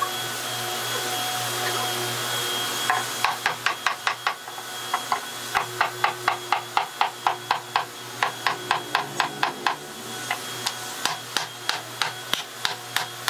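A steady hiss, then from about three seconds in a run of sharp hammer blows on wood, about three a second.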